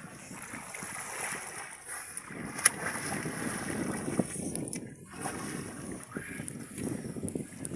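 Water splashing and sloshing as children swim and wade in shallow sea water, with a single sharp click about three seconds in.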